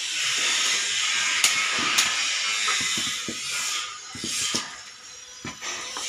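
Steady hiss of steam from an oyster-mushroom baglog steaming chamber, easing off about four seconds in, with scattered knocks and clicks as baglogs are handled at its door.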